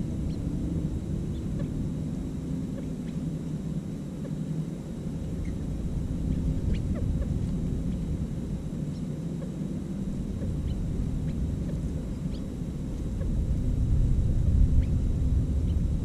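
A steady low outdoor rumble with faint, short bird chirps here and there; the rumble grows louder near the end.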